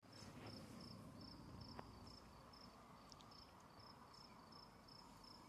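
Faint insect chirping, cricket-like: a short high chirp repeating about two or three times a second, over low background noise.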